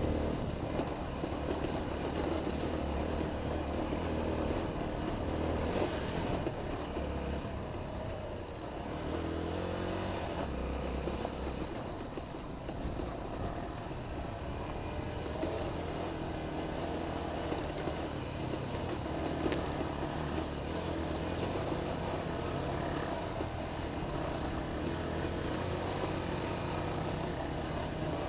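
Honda XR 250 single-cylinder four-stroke dirt bike engine running continuously, its revs rising and falling as it is ridden.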